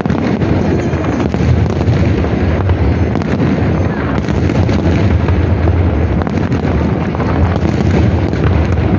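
Large fireworks display: aerial shells bursting in a dense, unbroken barrage of overlapping bangs and crackle over a deep rumble.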